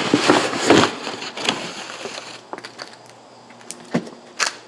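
A large cardboard box being opened by hand: its flaps scraping and rustling for the first couple of seconds, then a few sharp clicks near the end.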